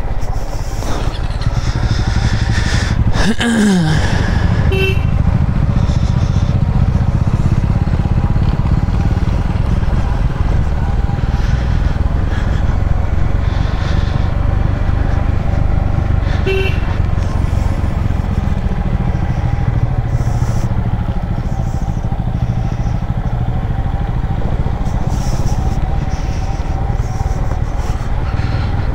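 Yamaha MT-15's single-cylinder engine running at low road speed on a rough, broken road, heard from on the motorcycle, with a short drop in pitch about three seconds in.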